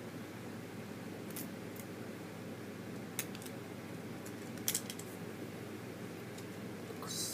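Plastic Lego bricks clicking as they are handled and pressed together: a few sharp, separate clicks over a steady low hum, with a brief hiss near the end.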